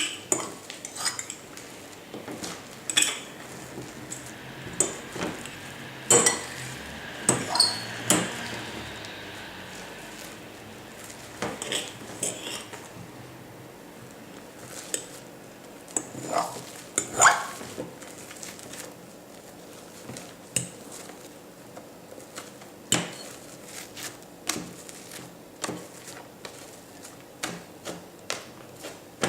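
A utensil stirring slime in a bowl, scraping round the sides and knocking against it in irregular clicks and knocks.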